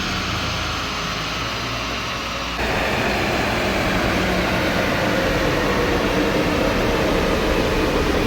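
Car engine running steadily, with a low drone. About two and a half seconds in it cuts abruptly to a louder, steady rush of engine and fan noise.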